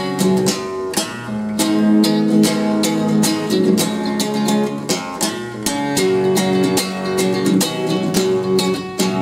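Nylon-string classical acoustic guitar strummed in steady rhythm, an instrumental break between sung verses.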